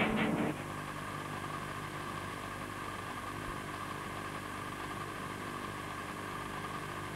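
A louder mixed sound cuts off about half a second in, giving way to a steady low drone.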